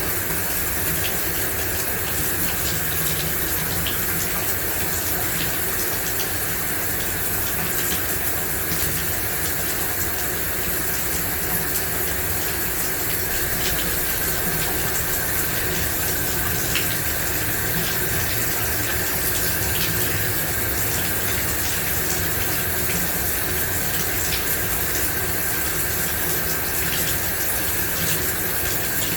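Shower running steadily, water spraying and splashing in an even rush with small scattered drips and ticks.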